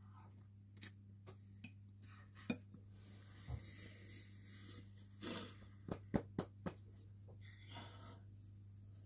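Steady low hum under scattered small clicks, clinks and brief rustles: a fork against a dish and mouth sounds of eating, then hands rubbing over clothing. The sharpest clicks come in a cluster about six seconds in.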